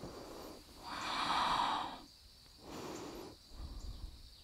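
A person breathing audibly during a yoga pose: a long, fairly strong breath about a second in, then a softer one about a second later.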